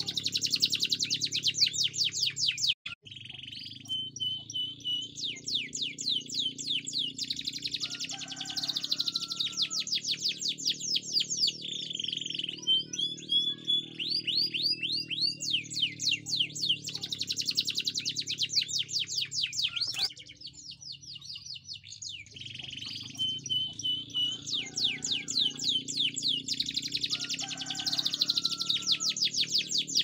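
Domestic canary singing long phrases of fast rolling trills, rapid series of high sweeping notes, broken by a couple of short pauses.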